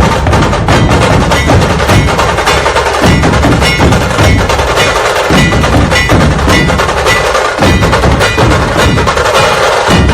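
Puneri dhol-tasha drumming: deep dhol barrel drums under rapid, continuous stick strokes on the tasha.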